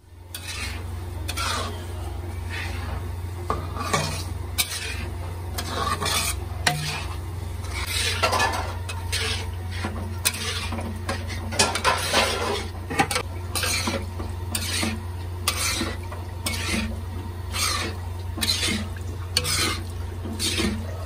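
A wooden spatula stirring and scraping thick halwa around a black iron karahi in uneven strokes, with occasional sharp clicks of the spatula against the pan. A steady low hum runs underneath.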